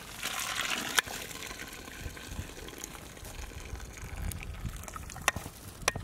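Water streaming off a perforated skimmer as a load of par-boiled basmati rice is lifted out of the pot, then sharp knocks of the skimmer against the aluminium pot: the loudest about a second in, two more near the end.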